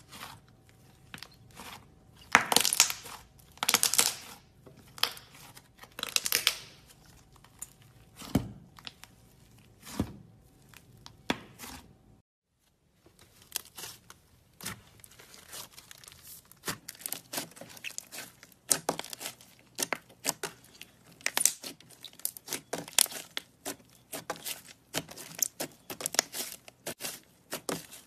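Slime being squeezed, stretched and pulled apart by hand, making crackling, popping and tearing sounds. The first half has spaced, louder bursts; after a short break about twelve seconds in, the crackles come quicker and denser.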